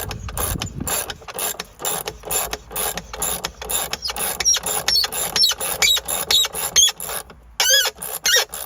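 The band clamp bolt on a DE pool filter tank being tightened down against its spring: a steady run of clicking, squeaky strokes about four a second. They pause briefly near the end, then a few squeakier strokes follow.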